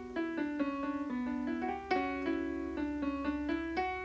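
Background music: a piano playing a run of single notes, several a second.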